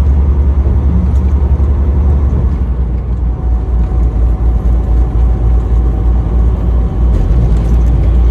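Steady road and engine noise inside a car's cabin while driving at highway speed, a deep continuous rumble.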